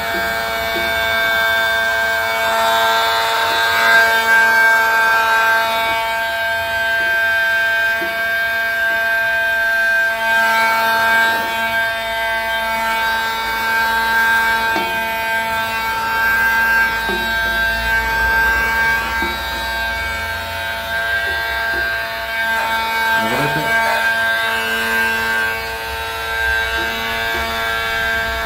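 Electric heat gun running with a steady motor whine while tint film is heat-shrunk to the curved side glass. A plastic card is pressed and drawn over the film, giving a few short scrapes.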